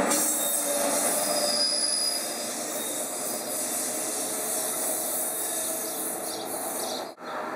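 NJ Transit multilevel commuter train running past on the rails, with a thin, high wheel squeal about one and a half seconds in. The rolling noise gets quieter after about two seconds as the rear electric locomotive passes and the train draws away.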